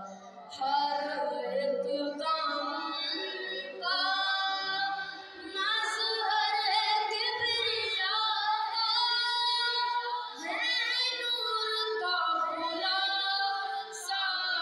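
A boy singing a devotional Urdu kalaam solo and unaccompanied into a microphone, in long held, ornamented phrases with brief pauses for breath.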